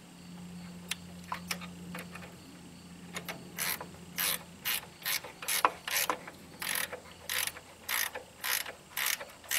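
Ratchet wrench tightening an engine mounting bolt: a few single clicks, then from about three seconds in a steady run of short ratcheting strokes, about two a second.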